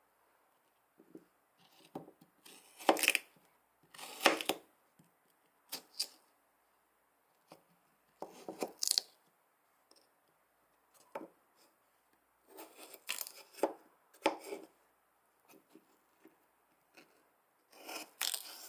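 Small kitchen knife cutting peeled raw potatoes on a plastic cutting board: short, irregular cuts and taps of the blade against the board, several seconds apart at times and in quick clusters at others.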